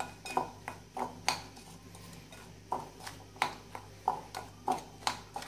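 Metal spoon clinking and scraping against a glass bowl while stirring melted butter into dry biscuit crumbs. The taps are light and irregular, with a short lull around the middle.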